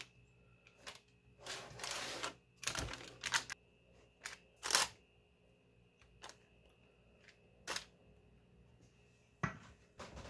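Silicone spatula scraping and spreading thick batter in a parchment-lined metal loaf pan: short soft scrapes and paper rustles, broken by a few light clicks and taps, the sharpest about five seconds in.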